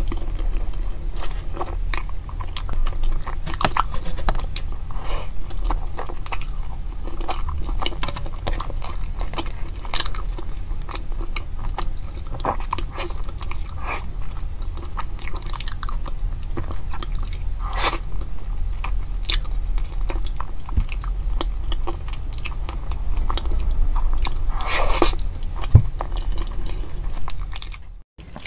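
A person biting into and chewing soft round red buns close to the microphone: a dense run of short mouth clicks and bites over a steady low hum.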